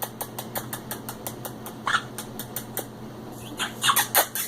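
Pet birds making a rapid run of short squeaky chirps and kiss-like clicks, about five a second, with louder squeaks about two seconds in and again near the end. A steady low hum runs underneath.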